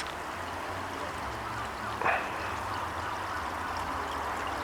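Water running and trickling steadily into a garden pond. A brief, short sound rises out of it about two seconds in.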